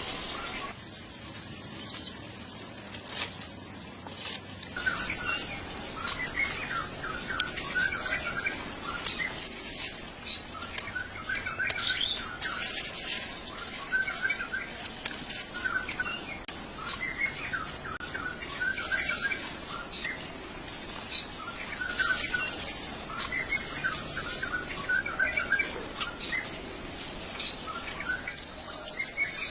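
Birds chirping in repeated short bursts, over frequent small clicks and rustles.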